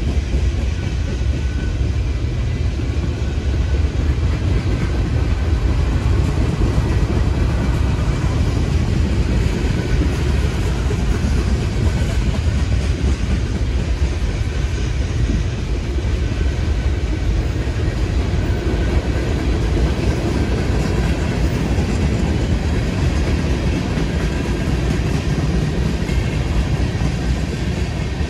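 Freight train rolling by: a steady, even rumble of the cars on the rails.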